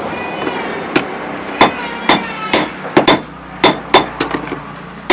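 Blacksmith's hand hammer striking iron on an anvil to forge a machete blade, about two blows a second starting about a second in, each blow with a short bright metallic ring.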